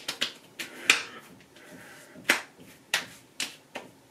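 Hands patting and slapping aftershave onto a freshly shaved face: a series of sharp smacks, about seven in four seconds, the loudest about two and a half seconds in.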